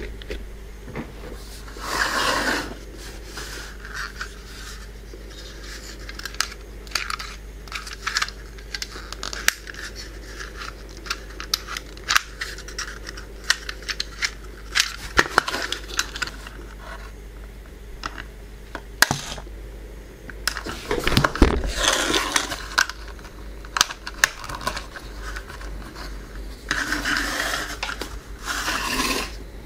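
A small plastic toy car and its spring-loaded push-button launcher being handled: many light hard-plastic clicks and taps, with a few longer stretches of scraping and rustling, about two seconds in, past the twenty-second mark, and near the end.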